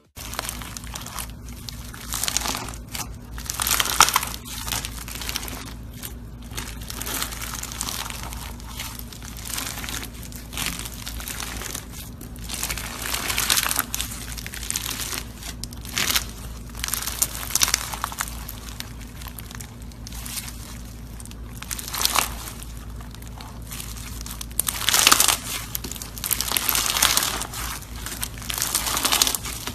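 Slime being squeezed, kneaded and pulled apart by hand: a dense, irregular crackling, with louder bursts every few seconds as the hands press it.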